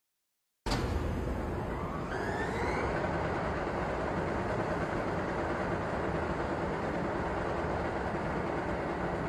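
Airliner cabin noise in cruise: a steady rush of engine and airflow noise that cuts in abruptly about half a second in, with a faint rising whine in the first couple of seconds.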